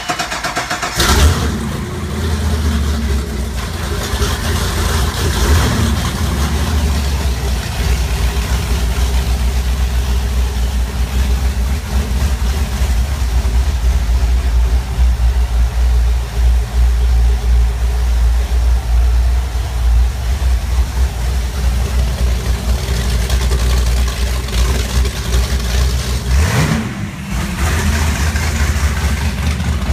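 Twin Mercury Racing 525 big-block V8 marine engines running at idle through a custom stainless marine exhaust, a loud, steady low rumble. Near the end the pitch dips and then rises briefly.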